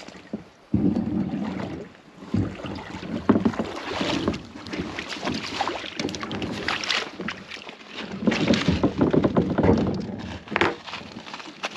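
A kayak on the water, with irregular bursts of paddle and water noise against the hull.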